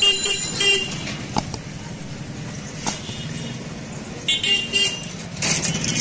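Vehicle horns honking in street traffic: short honks right at the start and again about four and a half seconds in, over a steady low traffic rumble, with a couple of sharp clicks between.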